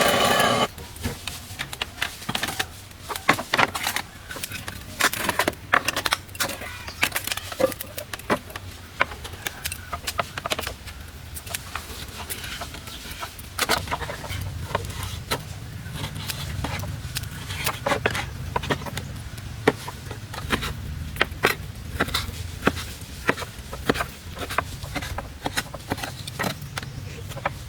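Irregular clicks, knocks and scrapes of hand work with building materials. A low steady hum joins about halfway through.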